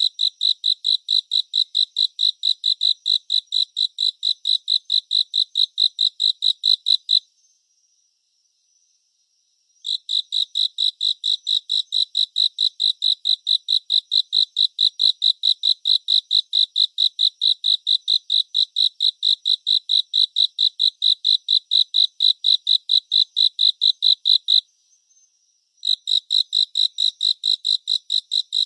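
Cricket chirping: a steady run of high, evenly spaced chirps, about four a second, that stops for a couple of seconds about seven seconds in and again near the end before resuming.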